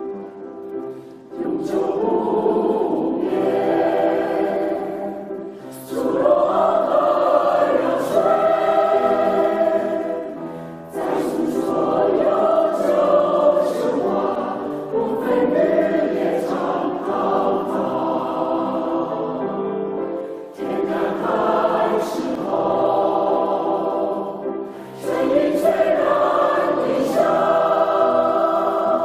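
Choir singing a song in phrases a few seconds long, the sound dipping briefly between phrases.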